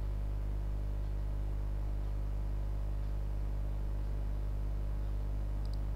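Steady low electrical hum with a stack of overtones, like mains hum on the audio line, unchanging throughout. A couple of faint ticks come near the end.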